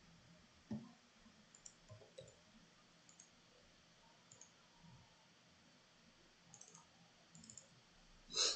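Faint computer mouse clicks, a handful scattered through the stretch, the loudest one near the end.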